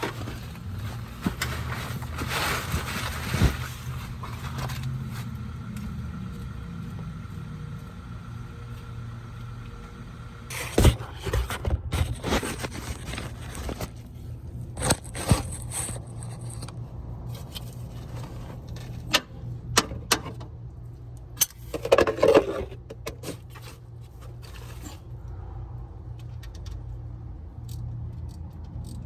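Metal hand tools clinking, knocking and scraping during work on a car's oil change, in scattered bunches, over a steady low hum.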